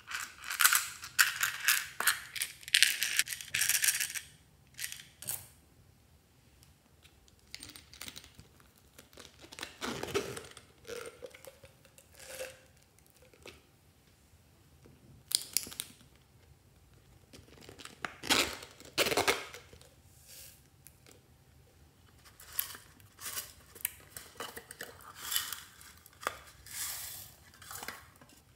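Hands handling small plastic toys, containers and packaging over glass dishes of slime: bursts of clicks, rattles and crinkling, densest in the first few seconds, as small decorations such as sequins and foam beads are shaken out onto the slime.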